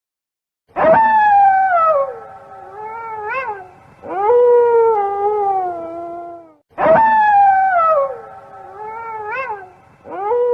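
An animal's series of long, wavering howling calls, each sliding down in pitch, the same pattern coming twice.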